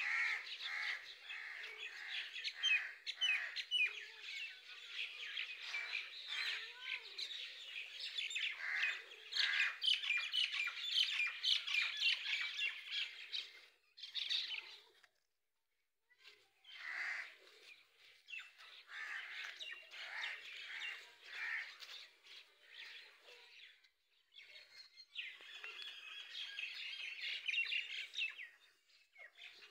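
Many small birds chirping and twittering in a dense, busy chorus. It breaks off completely for a moment about halfway through, and again briefly about two-thirds of the way in.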